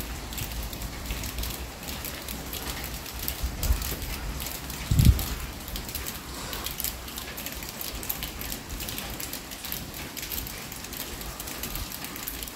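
Outdoor background noise: a steady crackling hiss over a faint low rumble, with one brief low thump about five seconds in.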